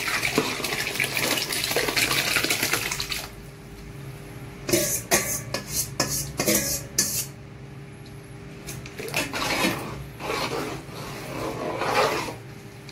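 Pork blood pouring from a bowl into a large aluminium pot of simmering stew for about the first three seconds, then a ladle clinking and scraping against the pot as it stirs the blood in to keep it from clotting.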